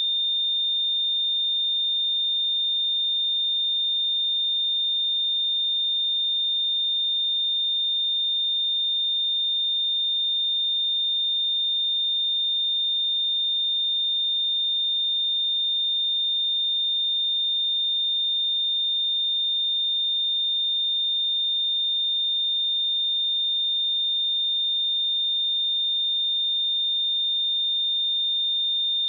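A steady pure 3625 Hz sine-wave test tone, one unchanging high-pitched whistle at constant level, used for checking speakers and headphones.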